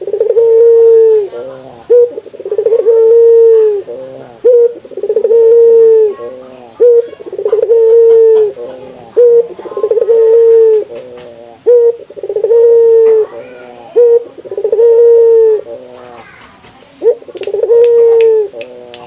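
Burung puter (Barbary dove) cooing over and over, each phrase a few short notes and then one long drawn-out coo, about one phrase every one and a half to two seconds. The calls pause briefly near the end, and a few faint clicks come in late.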